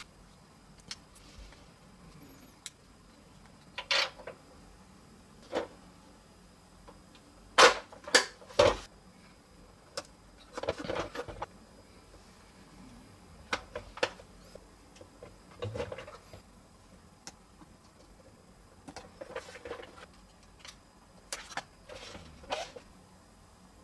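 Hard plastic parts of a toy fire truck clicking, scraping and snapping together as pieces are pressed into place by hand. The clicks are scattered, with three sharp snaps in quick succession about eight seconds in as the loudest.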